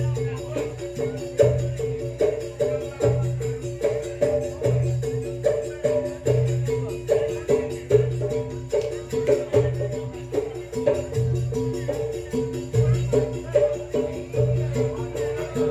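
Traditional percussion ensemble playing pencak silat accompaniment. Tuned struck instruments repeat a fast note pattern over drum strokes, with a deep gong-like stroke about every second and a half.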